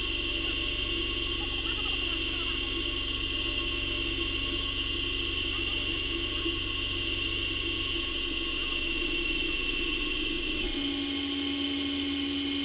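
Friction stir welding machine running as its rotating tool traverses the joint in 2 mm Al-Mg sheet: a steady machine whine made of several high constant tones over a low hum. Near the end the hum drops away and a new steady, lower tone comes in.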